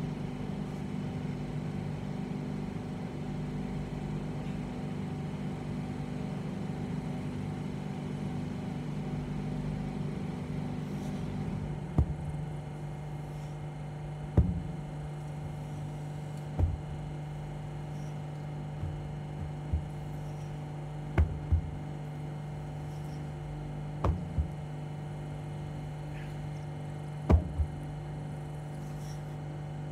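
Large tractor tyre being flipped over and thudding down on grass, a heavy thud every two to three seconds from about halfway through, some in quick pairs, over a steady low hum.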